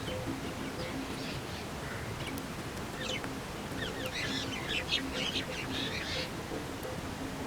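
A bird calling: a rapid burst of high chirps starting about three seconds in and lasting around three seconds, with a few fainter chirps before it, over a steady background hiss.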